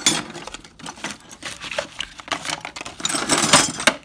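Loose metal hand tools (wrenches, sockets) clinking and clattering against each other as a hand rummages through a crowded toolbox drawer, with a louder burst of rattling near the end.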